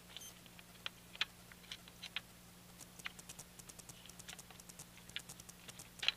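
Faint clicking of small plastic gears being seated and turned into alignment on a Nerf Slingfire's gear train: a few scattered clicks at first, then a quicker run of small ticks in the second half.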